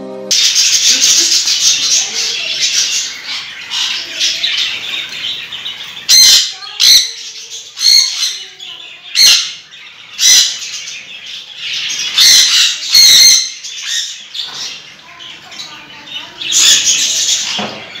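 Sun conures screeching: about eight loud, harsh shrieks from about six seconds in, over continuous high-pitched bird chatter that fills the first six seconds.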